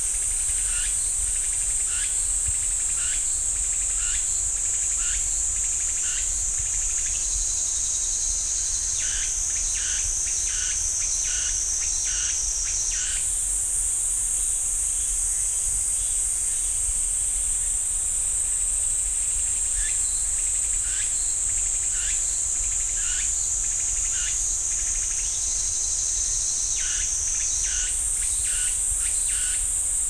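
Cicadas singing: a steady high-pitched buzzing chorus whose pitch sinks slowly and then jumps back up, once near the middle and once near the end. Short chirps repeat about once a second over it.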